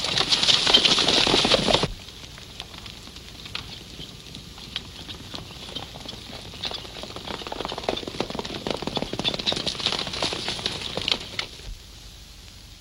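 Hoofbeats of several horses galloping: loud and close for about the first two seconds, then cutting off suddenly. Fainter galloping follows, growing louder and then fading out about a second before the end.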